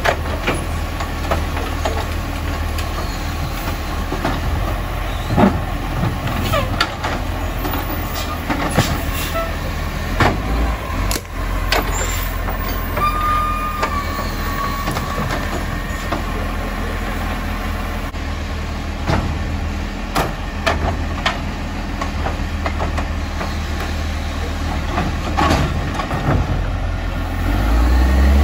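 Acco side-loader garbage truck idling while its hydraulic arm lifts and tips wheelie bins into the hopper, with repeated knocks and clatter of bins and rubbish. There is a short high squeal about halfway through, and the engine grows louder near the end.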